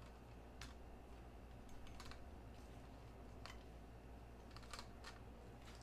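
Faint, scattered clicks and taps, about one every second or so with a small cluster near the end, from small parts of the gear being handled and fitted together over a low steady room hum.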